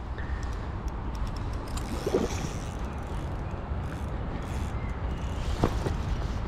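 Steady low rumble of wind on the microphone, with faint scattered ticks and two brief, faint voice-like sounds about two and five and a half seconds in.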